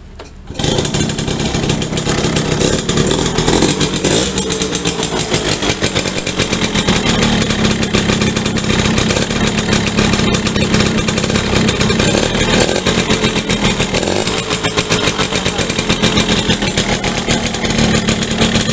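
Yamaha V75's small two-stroke single-cylinder engine catches about half a second in and keeps running with a fast, even buzz. It runs rough when hot, which the mechanic takes for a worn, loose piston and rings and a worn connecting-rod small end; the bike has lost power and struggles on hills.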